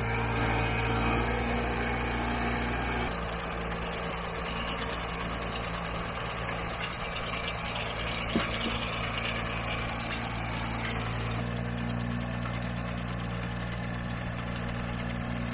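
John Deere tractor engine running steadily while pulling a sickle bar mower through tall grass. It is a little louder for the first three seconds and again from about eleven seconds in, with one short knock about eight seconds in.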